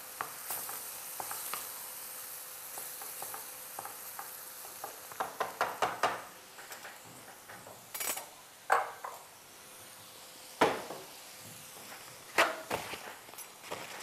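Sauce of mushrooms, onion and diced tomato sizzling in a stone-coated frying pan while a wooden spoon stirs it. About five to six seconds in comes a quick run of clattering knocks, then single sharp kitchen knocks every second or two.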